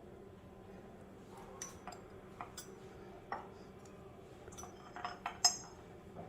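A metal spoon clinking lightly against dishes while spices are measured out: a scattering of faint taps, a few with a short high ring, the loudest about five seconds in.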